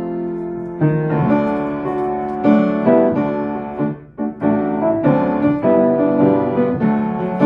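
Piano playing a hymn in full chords. A held chord gives way to a new chord about a second in, and after a brief break near the middle the chords move on.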